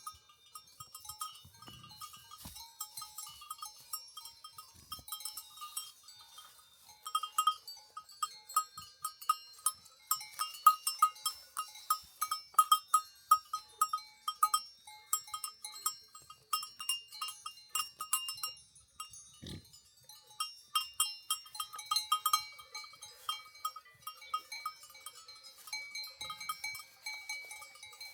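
Several livestock bells clanking irregularly and continuously, the jangle of bell-wearing animals moving and grazing, busiest in the middle stretch.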